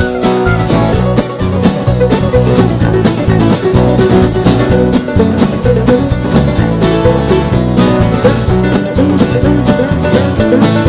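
Background music: upbeat bluegrass with fast-picked banjo and acoustic guitar.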